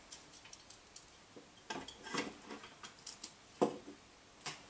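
Faint, irregular light clicks and small clinks, a few each second, a little louder about two seconds in and again shortly before four seconds.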